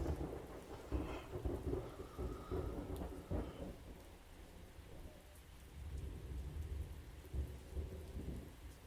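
Thunder rumbling in uneven rolls over steady rain. The rumble is heaviest in the first few seconds, eases off, then swells again a little past the middle.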